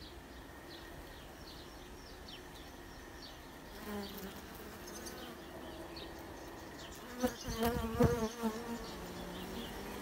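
A crowd of Carniolan honey bees on a brood comb frame, with a steady buzzing hum. About seven seconds in the buzzing swells louder and wavers in pitch for a second or so.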